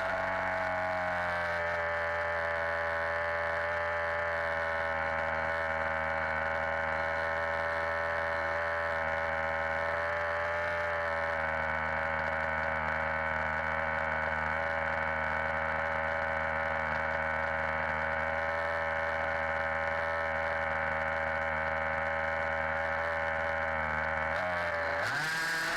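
HPI Baja 5B's two-stroke petrol engine idling steadily at one constant pitch, then revving up near the end.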